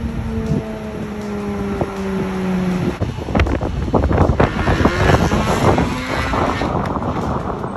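A vehicle engine running with its pitch slowly falling, then, about three seconds in, a stretch of rattling knocks and wind buffeting the microphone.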